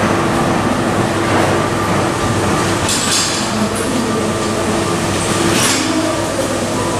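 Steady rumble and hiss of a moving vehicle heard from inside it, under a faint steady hum. Two brief high hissing squeals come about three seconds in and near the end.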